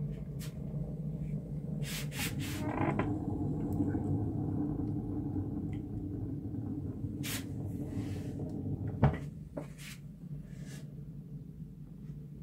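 Steady low rumble of a stove burning, with scattered clicks and knocks; a sharp knock about nine seconds in, after which the rumble is quieter.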